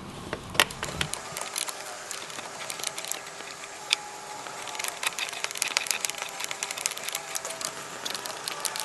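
A 10 mm wrench working a battery terminal nut: irregular metallic clicks and ticks as the nut is loosened, wire terminals are tucked behind it and it is tightened back down, with some handling noise in the first second.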